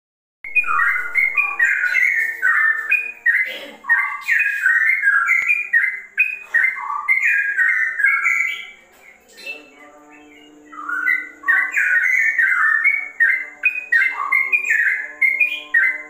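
Yellow-vented bulbul (trucukan) singing a rapid, non-stop run of quick whistled notes sliding up and down, the 'ropel' style likened to a straw-headed bulbul's song. It breaks off for about a second and a half after the middle, then starts again.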